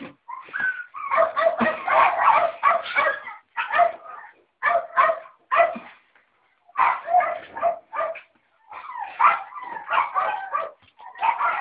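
West Highland White Terrier puppies yipping and whimpering in repeated bursts, several high-pitched calls overlapping, with short pauses between the bursts.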